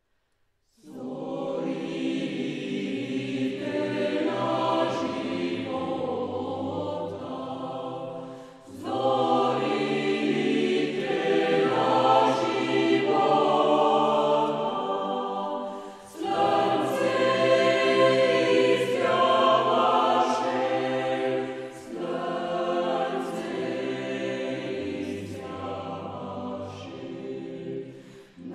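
Choral music: a choir singing slow, held chords in phrases of about six to eight seconds, with short breaths between phrases. It starts about a second in.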